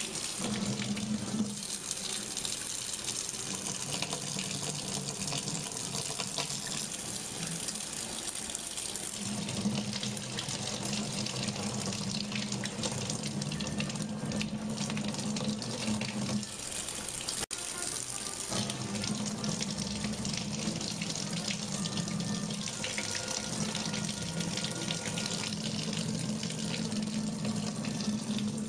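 Kitchen faucet running in a steady stream into the sink, with a low hum underneath that drops out and comes back a few times.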